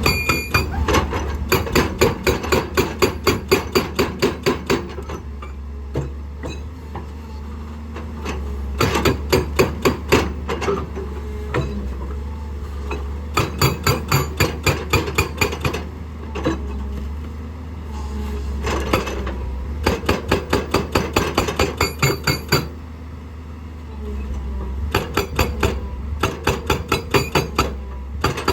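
Excavator-mounted hydraulic rock breaker pounding rock in five bursts of rapid, evenly spaced blows, several a second. Between the bursts the excavator's diesel engine keeps running with a steady low hum.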